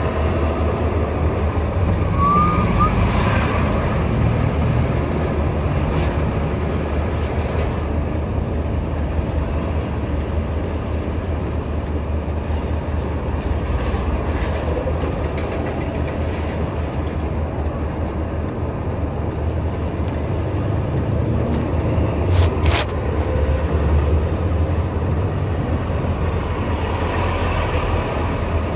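Steady low rumble of heavy diesel engines from trucks and a tracked loader working at the roadside. A few sharp clicks come about three-quarters of the way through.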